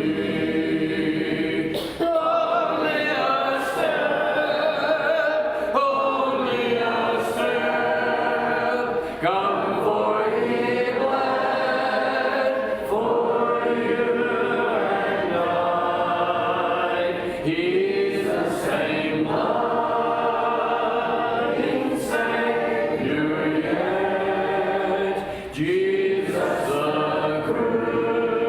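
Church congregation singing a hymn a cappella, many voices together with no instruments, in slow sustained phrases with brief breaths between lines.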